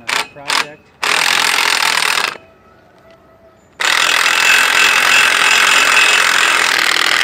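Red cordless power driver running hard, driving a bolt into the concrete pier. It runs in two bursts, a short one about a second in and a longer one from about four seconds on, after a few short clicks.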